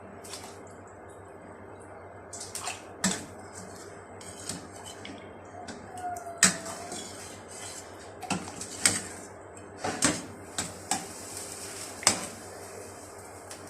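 Metal kitchen utensils clinking and knocking against cooking pots: a string of irregular sharp strikes, the loudest about six and a half, nine and twelve seconds in, over a steady low hum.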